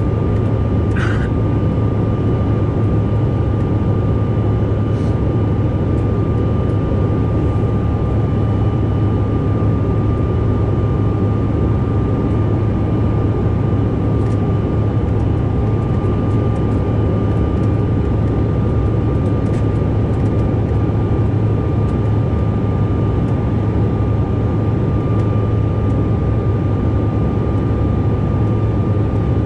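Cabin noise inside a Mitsubishi CRJ-900 regional jet in its climb after takeoff, near its rear-mounted GE CF34 turbofans: a steady deep roar with a thin, steady high tone running over it.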